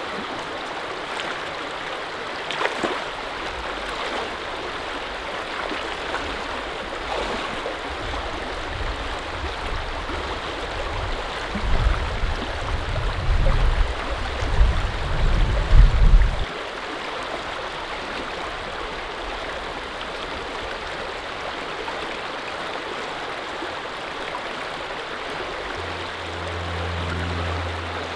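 Shallow river running over rocks, a steady rush of water. A low rumble comes and goes for several seconds in the middle, and a steady low hum starts near the end.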